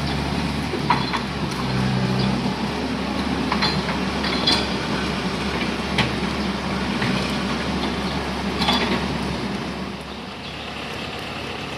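Excavator's diesel engine running steadily, with several sharp metallic clanks about a second apart to a few seconds apart. The sound drops a little in level about ten seconds in.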